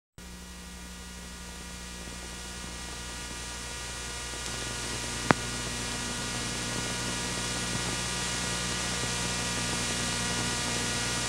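Electrical mains hum with a steady hiss, slowly growing louder, with one sharp click about five seconds in.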